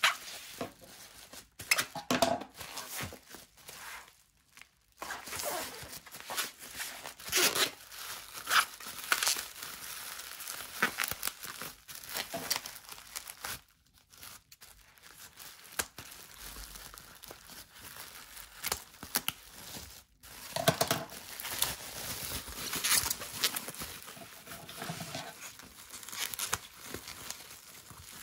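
Plastic bubble wrap crinkling and rustling as it is cut open with scissors and pulled apart by hand, in irregular spells with a few short pauses.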